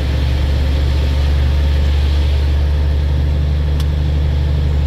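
Trailer truck's diesel engine running with a steady low drone.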